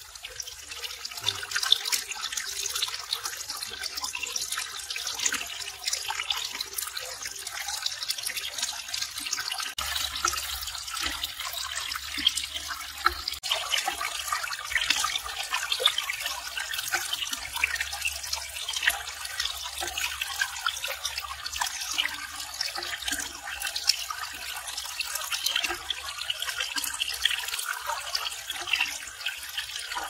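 Water splashing and trickling steadily, poured from a bamboo pipe down a mud-built waterfall into a pond.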